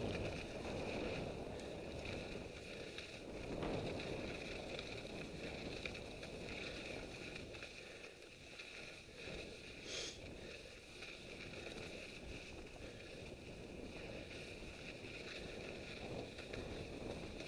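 Mountain bike rolling along a snow-covered track: a steady rush of tyre noise on the snow and riding noise from the bike, with a brief high squeak about ten seconds in.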